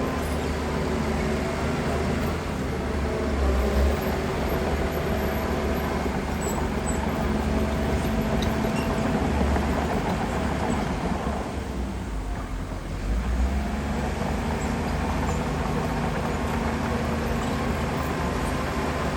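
Heavy diesel engine of earthmoving machinery running steadily with a deep rumble. It dips briefly a little past the middle, then picks up again.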